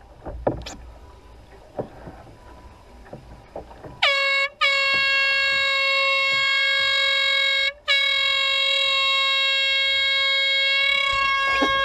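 Handheld marine air horn blown: a short blast about four seconds in, then two long, steady blasts separated by a brief break, the last still sounding at the end. Before it, only a few faint knocks.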